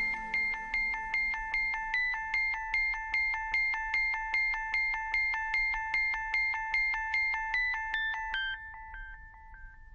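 Background music: a chiming, glockenspiel-like electronic tune of evenly paced notes, about three a second, over a held tone, fading out about two-thirds of the way through.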